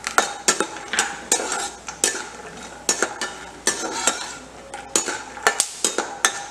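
Slotted metal spatula stirring almonds and cashews in hot ghee in a kadhai, scraping and clicking irregularly against the pan several times a second, over a light sizzle of frying.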